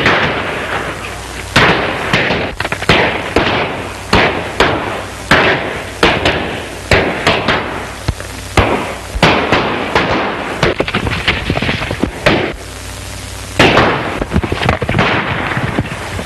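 Gunfire in a shootout: an irregular string of sharp shots, roughly one to two a second, each with a short echoing tail, with a brief lull before a loud shot near the end. Heard on an early-1930s film soundtrack with a low steady hum beneath.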